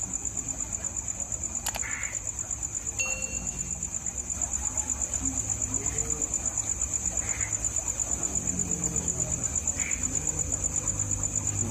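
Night insects trilling steadily, a high-pitched, fast-pulsing drone, with a few short chirps from another creature now and then.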